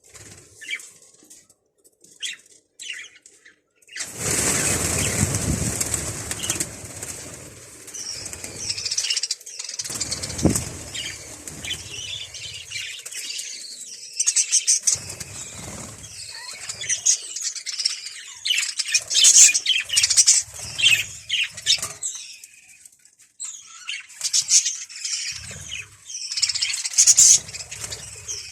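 Birds flapping their wings, with a loud burst of flapping about four seconds in, followed by many short, high chirps and calls.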